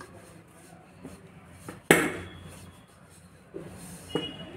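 Rolling pin working a sheet of dough on a hard surface: light rubbing with a few clacks, and one sharp knock about two seconds in.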